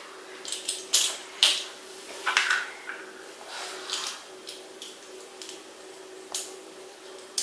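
Handling noise from small plastic toy parts as a Playmobil figure's backpack is fiddled with and taken off: a few scattered light clicks and rustles, over a faint steady hum.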